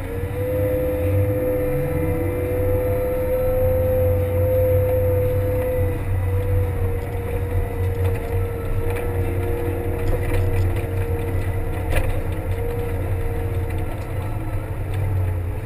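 Kramer 380 wheel loader's diesel engine running steadily as it drives and turns with its snowplow, with a steady whine that falls slightly in pitch over the engine's hum. There is a single knock about three-quarters of the way through.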